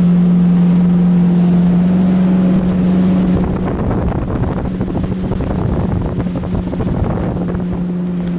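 Motorboat engine running steadily under way, its drone stepping up slightly in pitch about two seconds in. Wind on the microphone and rushing water grow louder over the last few seconds.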